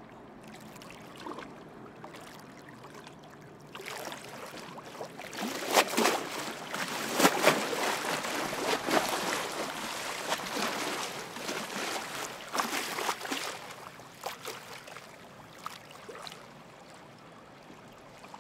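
River water lapping and splashing, a run of small irregular splashes that swells from about four seconds in and dies away after about fourteen seconds.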